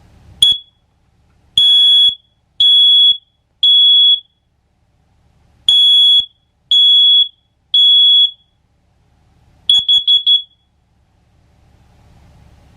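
SC01N smoke alarm sounding, extremely loud. One short chirp, then two rounds of three half-second beeps in the temporal-three evacuation pattern, ending in a quick stutter of four short chirps as it stops.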